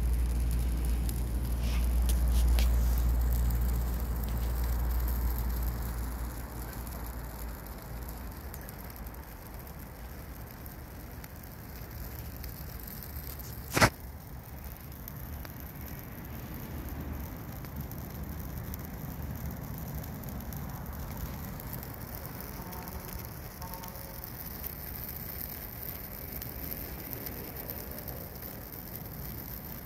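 Green branches burning in a metal barrel: a steady fire hiss with scattered small crackles, and one sharp loud pop about halfway through. A low rumble sits under it for the first several seconds.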